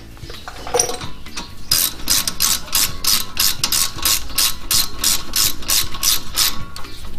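Hand ratchet clicking steadily, about four or five clicks a second, as it runs a brake caliper bolt in. It starts about two seconds in and stops near the end.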